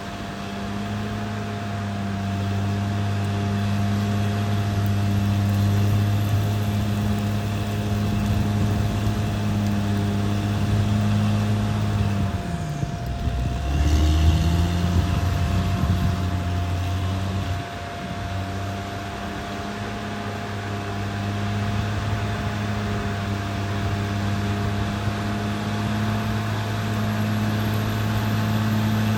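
CAT D6R XL bulldozer's diesel engine running steadily with a steady whine over it. About halfway through, the engine speed sags and then picks back up.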